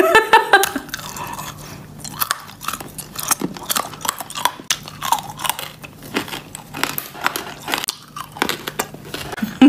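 Hard candy lollipops being bitten and crunched in the mouth, with many irregular sharp crunches.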